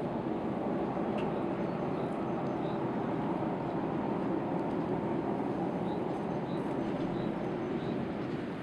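A steady low droning rumble of unknown origin, the 'strange noise' being recorded, with faint short high chirps scattered through it.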